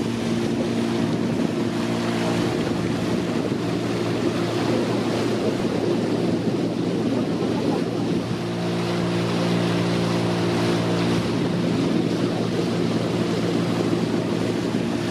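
Motorboat engine running at a steady speed, with water rushing past the hull and wind on the microphone. Midway the engine hum sinks under the rush of water and wind for a few seconds, then comes back.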